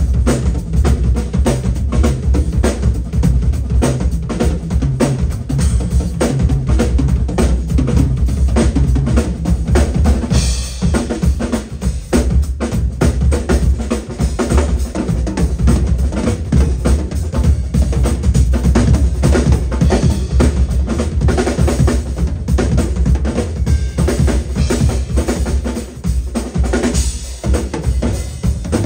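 Three drum kits played together live: a dense, fast run of bass drum and snare strokes, with cymbal crashes about ten seconds in and again near the end.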